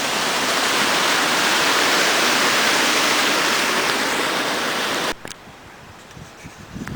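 Steady rush of water flowing out of the lake over a dam, which cuts off abruptly about five seconds in, leaving a much quieter background.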